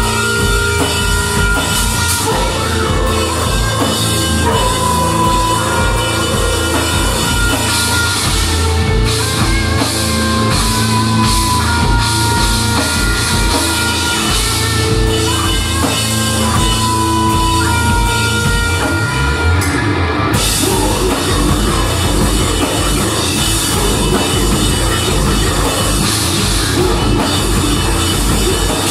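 A rock band playing live and loud: electric guitars, bass guitar and drum kit in a heavy, driving song that moves into a new section about two-thirds of the way through.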